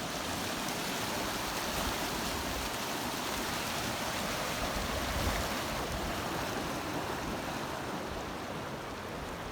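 Steady rush of flowing water from the Colorado River near its headwaters, here no bigger than a stream.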